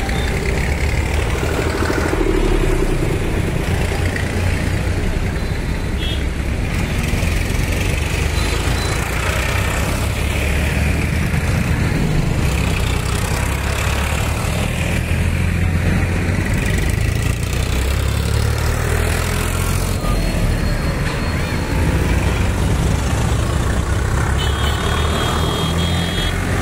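Diesel farm tractors pulling loaded trailers, driving past close by one after another, with a steady low engine drone.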